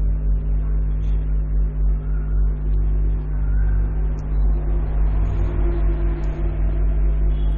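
Steady low hum with an uneven low rumble beneath it, unchanging throughout.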